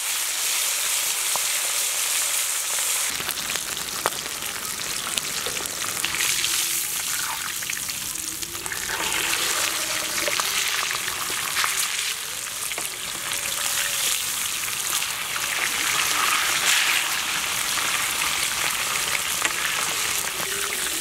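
A whole red pomfret sizzling steadily as it shallow-fries in sesame (gingelly) oil on a large griddle, with a few sharp clicks of a metal spatula against the pan.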